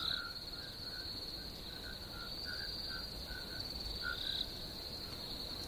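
Crickets chirping in a steady high trill, with short, lower chirps scattered irregularly through it.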